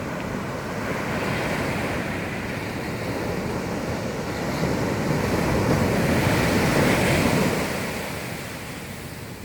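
Sea waves breaking and washing up a beach, a steady surf rush that swells to a peak a little past the middle and then eases off. Some wind noise on the microphone.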